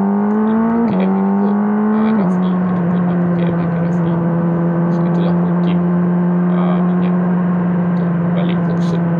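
Motorcycle engine pulling through two quick upshifts, about a second in and again just after two seconds, then holding steady revs at cruising speed.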